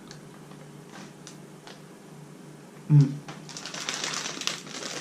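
Candy wrapper crinkling and crackling in hand as it is opened, a few light clicks at first and a busy run of crackles in the second half. A brief vocal sound about three seconds in.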